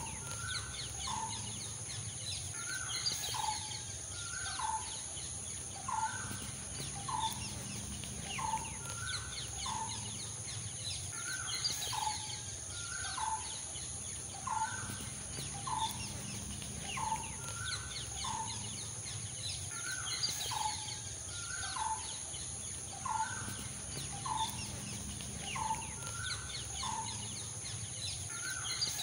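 A bird calling over and over, a short sharp note about once a second, with faint higher chatter behind it.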